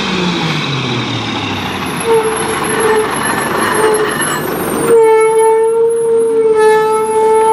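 Mack MR McNeilus rear-loader garbage truck passing close by and slowing, its diesel engine dropping in pitch as it comes off the throttle. About five seconds in the engine noise falls away and a steady high whine from the truck sets in.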